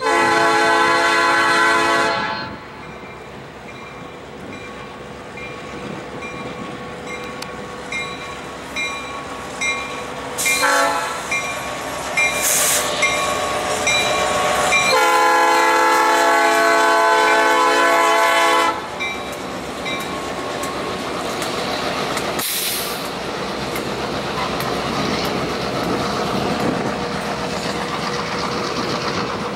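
Freight locomotive horn sounding as the train passes close by: a long blast, a short one about ten seconds later, then another long blast lasting nearly four seconds. A bell rings steadily through the middle. After the locomotives, loaded tank cars roll past with steady wheel clatter.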